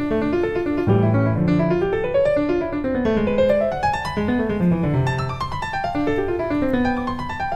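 Background piano music: a flowing melody of quick notes in rising and falling runs.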